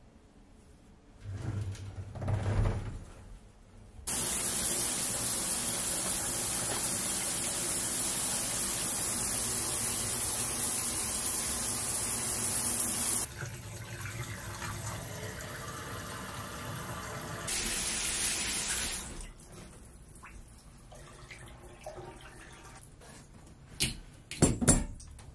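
Water running in a shower: a steady rushing spray that starts after a few low knocks, changes in tone partway through, then stops. A few sharp knocks and clatters follow near the end.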